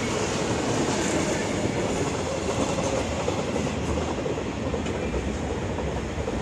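A Taiwan Railways freight train of hopper and box wagons rolling past close by, its wheels running over the rails in a steady, loud noise.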